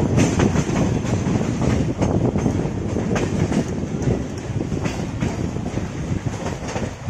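Electric multiple-unit (EMU) suburban train running, heard from its open doorway: a steady rumble from the coach with the wheels clattering irregularly over rail joints and points.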